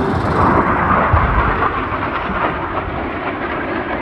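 Jet aircraft passing at an air show, its engine noise loudest about a second in and then slowly fading.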